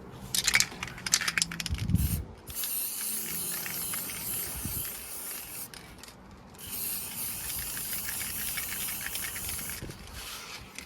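Aerosol spray can of primer being sprayed onto car bodywork in two long hissing bursts, after some clicking and a knock in the first two seconds.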